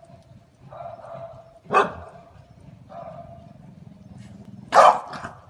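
Dogs barking: one sharp bark about two seconds in and a louder bark near the end, with quieter dog vocalising between them.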